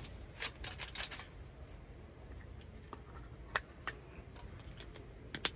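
Light clicks and taps from a small plastic seasoning shaker being handled and shaken over a fish on aluminium foil: a quick run of clicks in the first second, a few single ones in the middle and a sharp pair near the end.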